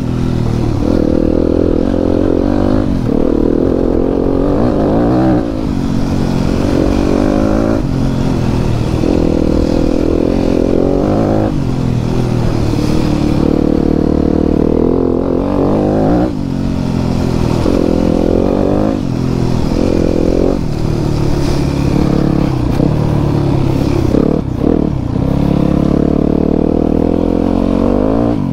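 Enduro dirt bike engine being ridden, revving up and easing off over and over, its pitch climbing and dropping every two to three seconds, with a few brief dips where the throttle is shut.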